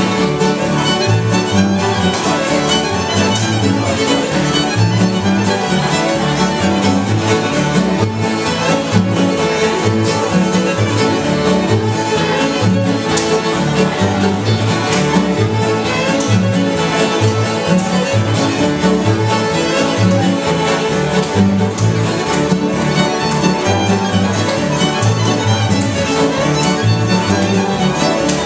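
Bluegrass string band playing together: a fiddle leads the tune over strummed acoustic guitars and a mandolin, with an upright bass keeping a steady beat underneath.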